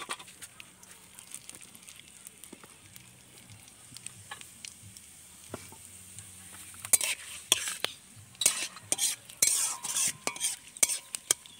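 Whole spices sizzling softly in hot oil in a metal kadai: the tempering (phoron) of cumin, dried red chilli, bay leaf and crushed garam masala. From about seven seconds in, a metal spatula scrapes and clacks against the pan as the spices are stirred.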